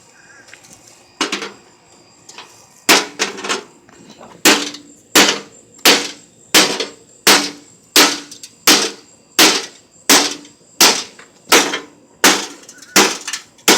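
Repeated hard blows on the metal of a gutted microwave oven, beating a part loose: one strike about a second in, then a steady run of about fifteen ringing strikes, roughly three every two seconds.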